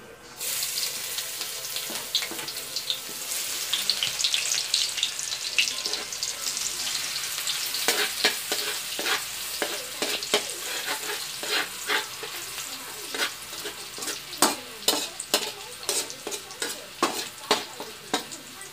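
Chopped red onion tipped into hot oil and garlic in a metal wok, setting off a sudden loud sizzle that keeps frying. In the second half a metal ladle stirs the onion, clinking and scraping against the wok over the sizzle.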